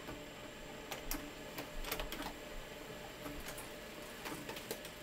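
Samsung CLP-315W colour laser printer printing a configuration page: its feed and drive mechanism clicks and ticks irregularly over a faint steady high whine.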